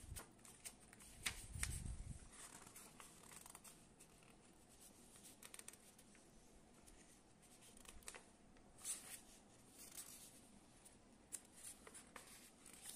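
Near silence: room tone with a few faint scattered clicks and rustles.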